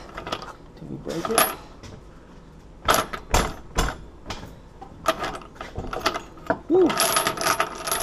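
Steel padlock and bolt cutters being handled: a series of sharp metal clinks and knocks with a ringing tail, busiest near the end.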